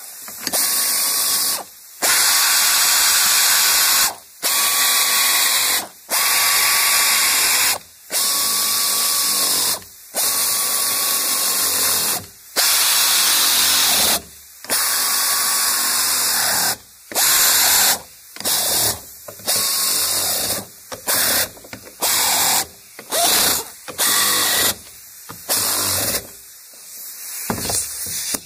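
Pneumatic air wrench running in repeated runs with a hiss and a whine that drops as each run stops, driving down the bolts of a fuel-tank sending-unit ring one after another. The first runs last about two seconds each; from about halfway on they become short quick bursts, each run only until the bolt begins to grab.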